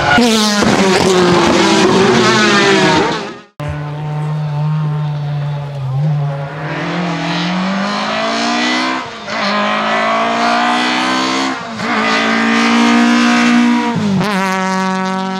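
1997 VW Golf 3 Kit Car rally car's naturally aspirated 2-litre straight-four running hard at high revs. First it falls in pitch as the car slows, then it cuts off abruptly. After that it climbs steadily in pitch through the gears, with short dips at each upshift, about 9 and 11.5 seconds in.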